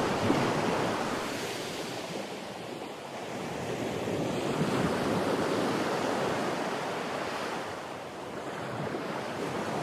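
Sea surf washing onto the beach, an even rush that swells and eases in slow waves.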